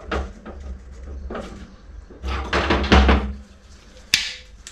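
Clacks and knocks of a metal jig mold and freshly cast lead jigs being handled on a workbench, with a louder clatter midway and a sharp click near the end.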